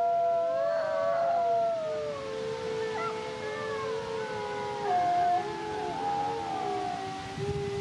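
Two gray wolves howling a duet: long, drawn-out howls at two different pitches overlapping and wavering, one voice sliding down in pitch a second or two in. Toward the end one wolf stops and the other howl carries on alone.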